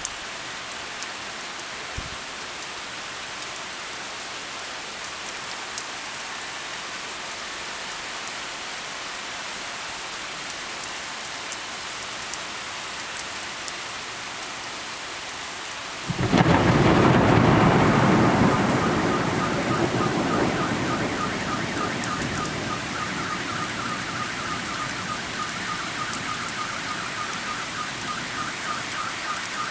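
Heavy rain falling steadily in a thunderstorm. About halfway through, a sudden loud thunderclap rumbles and slowly fades. Afterwards a fast repeating high warble carries on over the rain.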